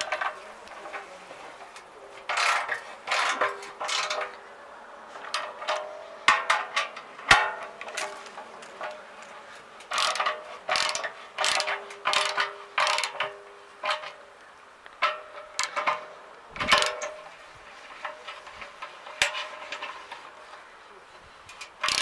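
Ratchet socket wrench clicking in repeated bursts of rapid ticks with short pauses between them, as bolts are turned through a drum mower's steel disc.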